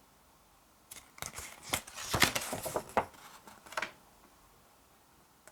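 Paper fold-out insert from a DVD case rustling and crackling as it is handled and unfolded, in a quick run of crinkles between about one and four seconds in.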